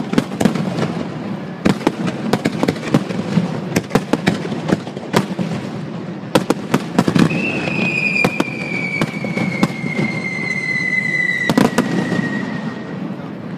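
Fireworks display: a rapid, irregular series of sharp bangs and crackles from aerial shells bursting, over a steady low rumble. About seven seconds in, a high whistle starts and falls slowly in pitch for several seconds.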